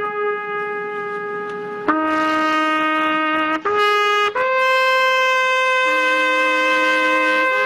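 Trumpet playing a short phrase of sustained notes, changing pitch a few times in the first four seconds and then holding a long, higher note.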